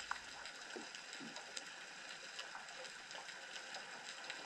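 Faint underwater crackling: a steady hiss dotted with many small irregular clicks, as picked up by a camera in its waterproof housing on the seabed.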